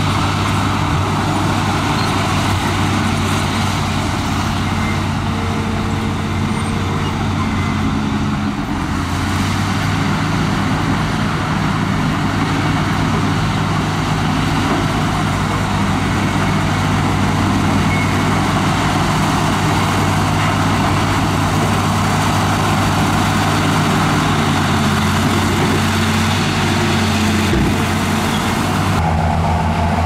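Heavy diesel engine of earthmoving machinery running steadily, its engine speed shifting about 9 seconds in and again near the end.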